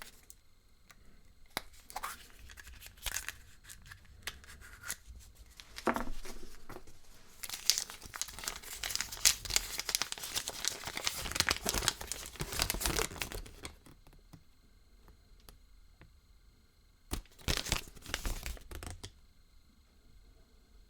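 Foil wrapper of a Kinder Surprise egg being torn and crinkled by hand: scattered crackles at first, a dense stretch of crinkling in the middle, and a short burst near the end.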